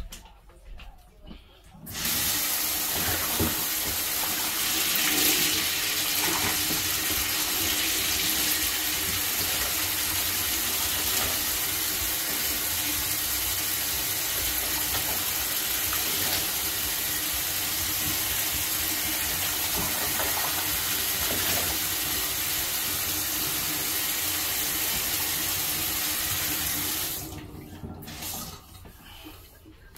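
Kitchen tap running steadily into the sink, turned on about two seconds in and shut off near the end.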